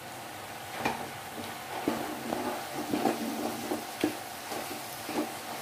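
A spatula stirring and scraping beef, onion and capsicum in a hot pan over a low sizzle, with irregular knocks of the spatula against the pan every half second to a second.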